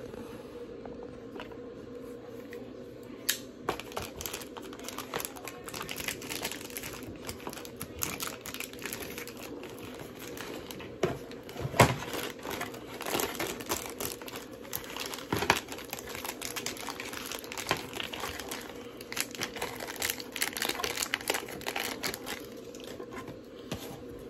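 Plastic and cardboard packaging of a Beyblade set being torn and opened by hand: irregular crinkling and crackling with scattered sharp clicks, the loudest about twelve seconds in.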